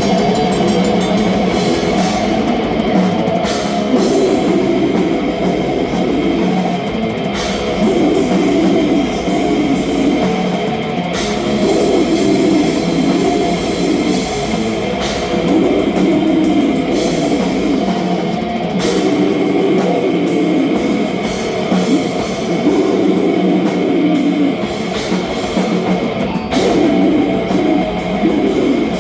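Death metal band playing live: heavily distorted electric guitars, bass and drum kit at full volume, with sharp accents hitting about every four seconds.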